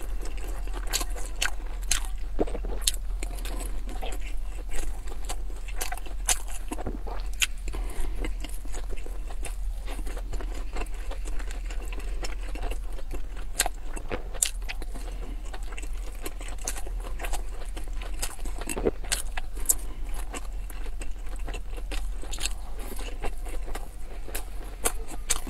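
Close-miked chewing and biting of pan-fried dumplings: many short, wet mouth clicks and smacks, irregularly spaced. A steady low hum runs underneath.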